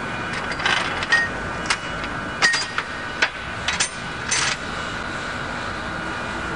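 Metal tools and pump parts clinking and tapping, about eight short sharp clicks and a few brief scrapes within the first four and a half seconds, over a steady workshop hum.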